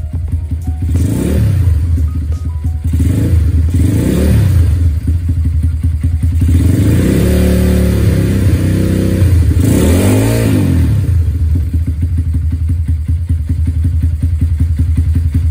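Motorcycle engine running through an aftermarket slip-on muffler freshly repacked with glass wool, idling with several short throttle blips and one longer held rev in the middle, then settling back to a steady idle. The exhaust note is the after-repair sound, more muffled and calmer than an unpacked muffler.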